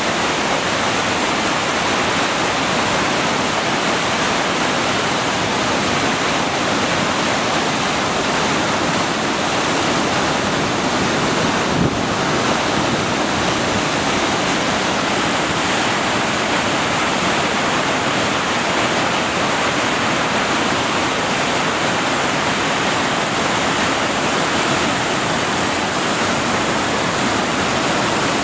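Steady rushing of a large volume of water pouring out of a dam's release gates or spillway.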